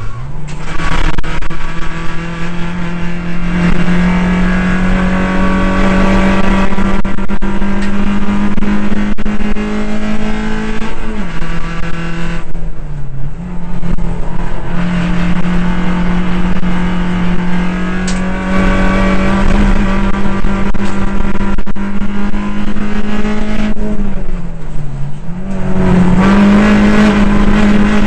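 Suzuki Swift cup race car's engine, heard from inside the cabin at racing pace: held at high revs on the throttle, its pitch falling twice, about halfway and near the end, as it lifts off for corners, then climbing again.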